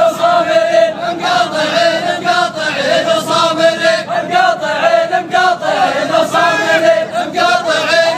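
A group of voices chanting a wedding song in unison, the held notes wavering, over a sharp regular beat.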